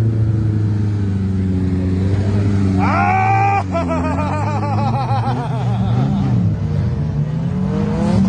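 Off-road 4x4 engine running steadily. About three seconds in comes a high sound that rises and then warbles for a few seconds.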